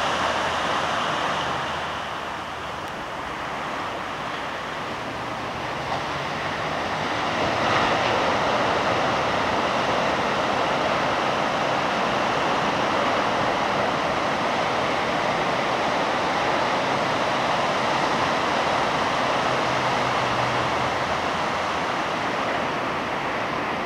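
Ocean surf breaking and washing up a sandy beach: a steady rushing hiss that eases a couple of seconds in and swells again about eight seconds in.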